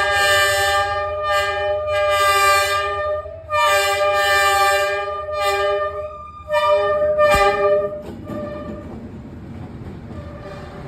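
Diesel locomotive horn sounding in long, loud blasts as the train approaches, stopping about eight seconds in. After that comes the steady rumble of the locomotive and carriages passing.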